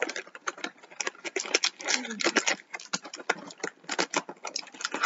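Rapid, irregular crinkling and clicking of plastic and cardboard toy packaging being handled, with small pieces clattering.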